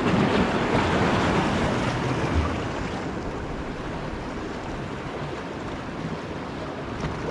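Sea waves washing over rocks in a steady rush, with wind on the microphone.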